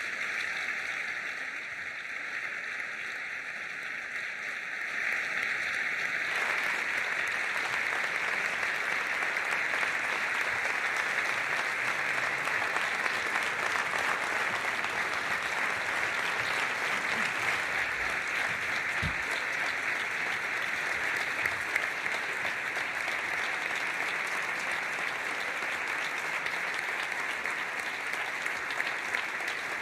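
Large audience applauding, a dense, sustained clapping that swells about five seconds in and then holds steady.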